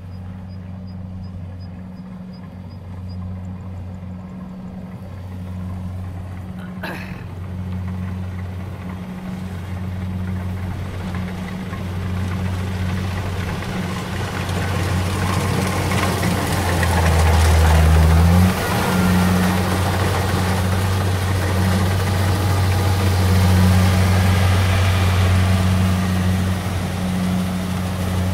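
Kubota combine harvester running as it cuts rice: a steady diesel engine drone that grows louder as the machine comes close and passes, with the noise of its cutting and threshing gear filling in over the second half. A brief deeper drone cuts off sharply about two-thirds of the way in.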